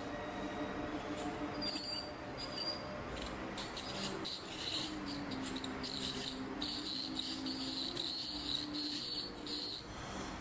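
Dental ultrasonic tip buzzing against a metal root-canal post in short, high-pitched, chirping bursts over a steady low hum, vibrating the post loose for retrieval.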